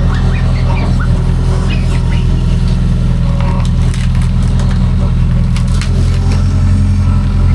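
Kobelco crawler excavator's diesel engine running steadily under load, with scattered cracking and snapping of wood as the machine crushes brush and branches.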